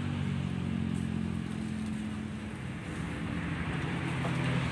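Main-road traffic: a steady low engine hum from passing vehicles, growing louder near the end.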